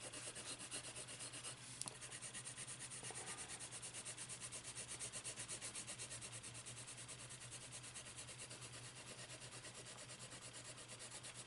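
Caran d'Ache Full Blender pencil rubbing back and forth over a layer of colored pencil on paper, blending it: a faint, dry scratching in quick regular strokes, about four a second.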